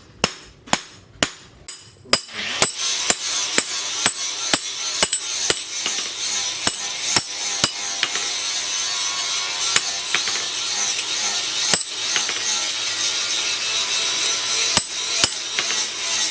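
Hammer striking steel on an anvil in a steady rhythm of about two blows a second, each with a short ring. From about two seconds in, a steady hissing noise runs under the blows.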